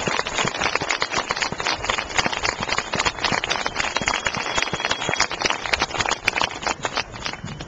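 Spectators applauding: many sharp hand claps close by, dense and irregular, dying down at the end.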